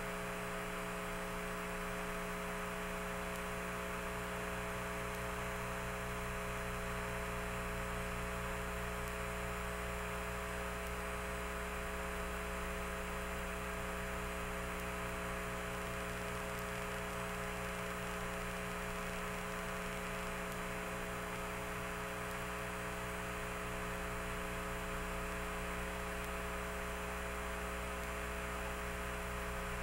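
Steady electrical hum with hiss and several unchanging tones, starting abruptly: the noise of an audio channel that carries no sound, as the rover television feed had no audio.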